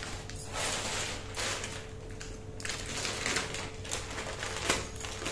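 Plastic snack and grocery packets rustling and crinkling as they are handled, in several separate bursts with a few sharp clicks.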